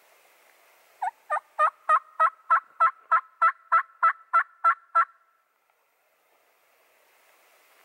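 A run of about fourteen turkey yelps, loud and evenly spaced at about three a second for some four seconds. Each note breaks downward in pitch.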